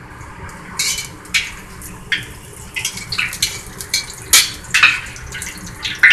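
A metal spoon and a perforated metal wok ladle clink and scrape against each other and against a carbon-steel wok as fried egg foo young patties are lifted out of the oil. The clinks are irregular and come from about a second in, with the loudest about four seconds in.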